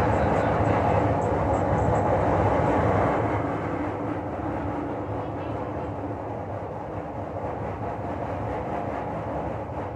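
Steady whirring of an electric pedestal fan, easing a little quieter about three seconds in.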